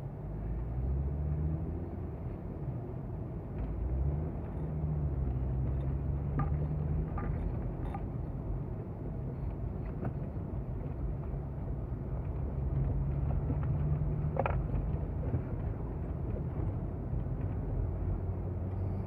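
Car engine and road noise heard from inside the cabin while driving, the engine note rising and falling several times as the car speeds up and changes gear.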